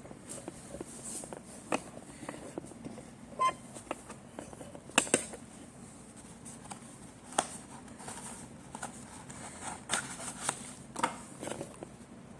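Handling and opening a small cardboard pack of mini fountain fireworks: scattered taps, clicks and rustles, the sharpest about five seconds in.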